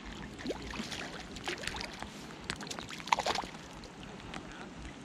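A hooked trout splashing at the water's surface as it is reeled in to the bank, with several short splashes and the loudest about three seconds in. Rain patters on the water throughout.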